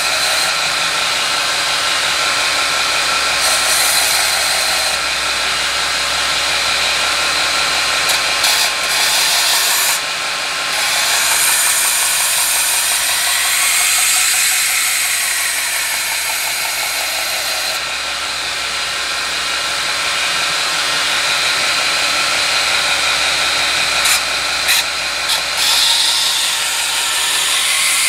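Belt grinder running a partly worn 120-grit belt while a steel knife blade is ground against its small contact wheel, reprofiling the dull edge. The steady grinding hiss shifts and dips briefly a few times as the blade's pressure and contact change.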